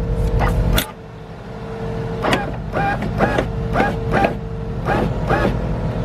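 Power window motor driving the new front door regulator of a 2003 Nissan Altima: a steady motor whine that stops about four and a half seconds in, with clicks and short squeaks from the glass and regulator mechanism, over the car's engine idling.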